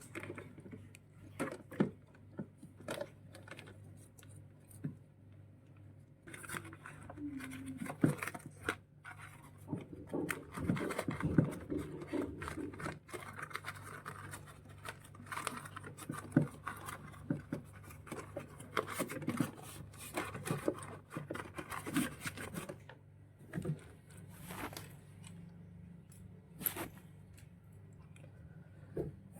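Hand-repair noises on a washing machine: scattered clicks, scrapes and rustles of tools and parts being handled, over a steady low hum.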